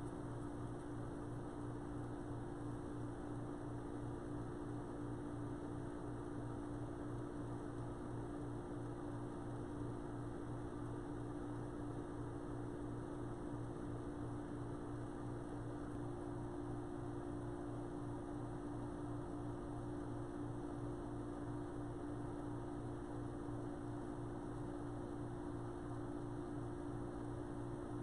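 Wood lathe running at a steady speed, giving a constant motor hum while the turned piece is hand-polished on it.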